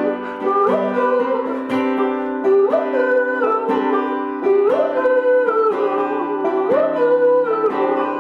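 Acoustic folk band playing an instrumental break on banjo and acoustic guitar, a gliding melody line repeating a short phrase about every two seconds over steady chords.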